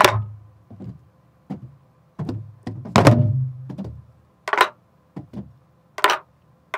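Sori-buk (pansori barrel drum) played in the slow jungmori rhythm. Deep ringing palm strokes on the drumhead alternate with sharp cracks of a wooden stick on the drum's shell, spaced roughly half a second to a second apart. The ringing strokes cluster near the start and around the middle, and the dry cracks come near the end.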